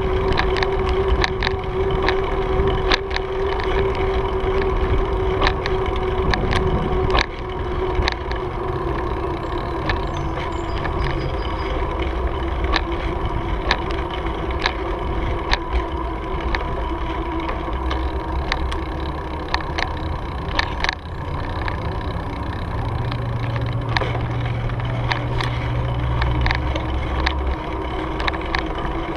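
Cannondale bicycle riding along a concrete path, heard from a camera mounted on the bike: a steady rolling hum with low wind rumble on the microphone, and frequent sharp clicks and rattles from the bike over bumps in the path.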